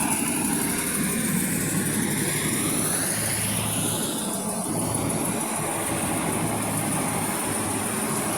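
Maxxi J rice combine harvester running steadily at working speed, a continuous engine and machinery drone.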